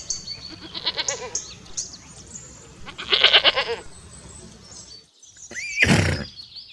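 Mountain goat bleating: a short call about a second in, then a louder, quavering bleat about three seconds in. Near the end comes a short, loud noisy burst.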